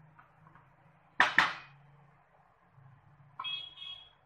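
Two sharp clinks of kitchen utensils against cookware about a second in, then a brief high ringing tone near the end, over a faint low steady hum.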